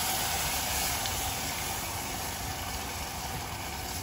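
A hot pot of sautéed onion, carrot and red lentils hissing and sizzling just after about a litre of water has gone in, slowly dying down while a wooden spoon stirs.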